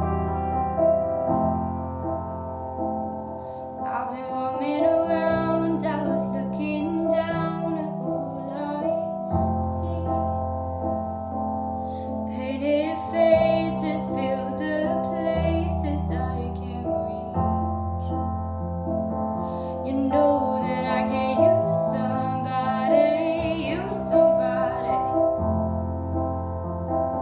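A slow song for solo female voice and piano: piano chords sound throughout, and a young woman sings phrases starting about four seconds in, again from about twelve seconds, and again from about twenty seconds.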